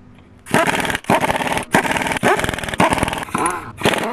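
A dog barking loudly and repeatedly, about two barks a second, starting about half a second in.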